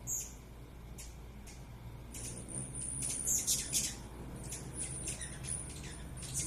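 Hummingbirds calling in quick, very high-pitched chips and squeaks, busiest in the middle few seconds.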